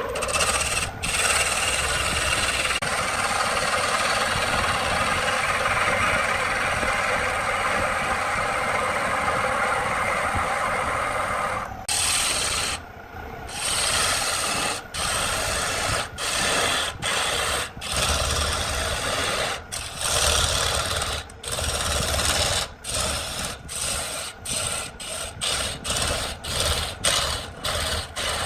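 Hand-held chisel cutting into a cedar log spinning on a wood lathe, shavings tearing off. There is a steady cut for about twelve seconds, then a run of short cuts broken by brief pauses, coming faster near the end, about two a second.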